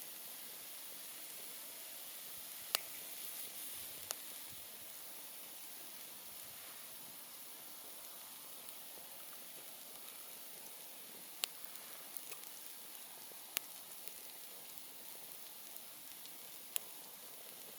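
Wood campfire burning: a steady hiss with a few sharp crackling pops, about five in all, spread through the stretch.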